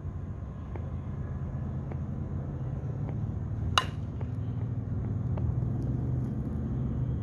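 Axe bat striking a softball off a batting tee, a single sharp ping with a brief ring almost four seconds in, over a steady low rumble.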